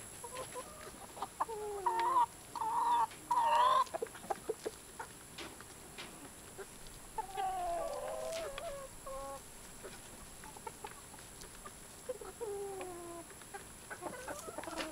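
Chickens clucking and calling in short pitched phrases, loudest about two to four seconds in, with more calls around the middle and near the end.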